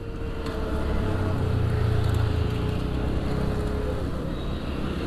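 Street traffic and wind rumble while the motorcycle rolls with its engine dead, out of fuel. The rumble swells for a second or so near the start, and a faint steady whine runs for about four seconds.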